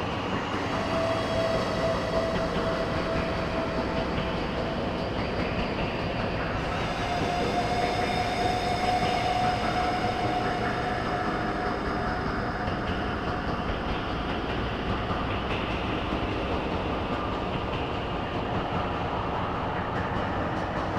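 Eurorack modular synthesizer playing harsh noise music: a dense, steady rumbling wash of noise with a faint held tone rising out of it twice, the second slightly higher, and more hiss in the upper range from about a third of the way in.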